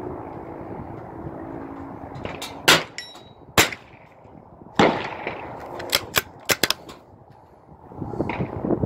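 Rimfire rifle shots on a shooting range: three loud, sharp reports about a second apart, followed by a quick cluster of quieter sharp clicks.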